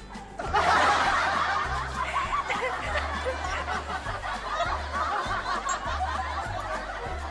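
Loud, continuous laughter starting about half a second in, over background music with a low bass line.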